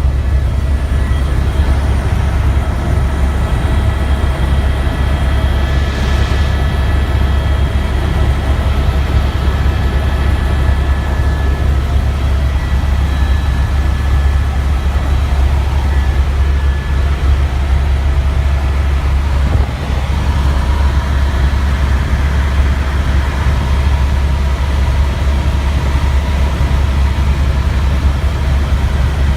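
Tour helicopter in steady cruise flight: a loud, constant low drone with thin, steady high whining tones above it.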